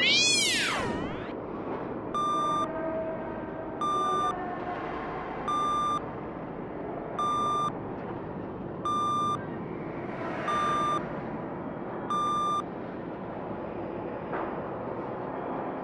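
Cartoon sound effects: a swooping whistle that rises and falls, then seven short electronic beeps at an even pace, one for each tool icon popping into the menu bar.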